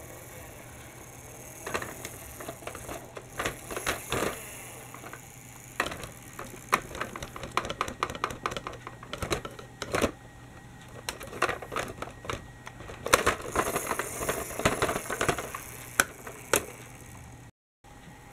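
Irregular plastic clicking and rattling as a toy articulated bus is handled and rolled over plastic Lego rail track, in clusters of quick clicks for most of the stretch.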